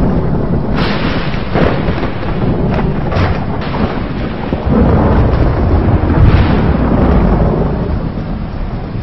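Thunder: a sharp crackling clap about a second in, with several more cracks over the next few seconds, then a long rolling rumble that swells near the middle and fades toward the end.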